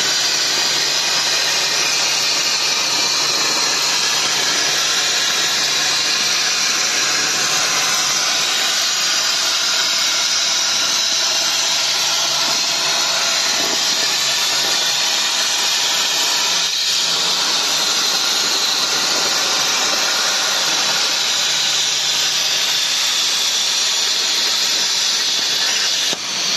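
CNC plasma cutter's torch cutting through metal plate: a loud, steady hiss of the plasma arc, with a faint low hum underneath.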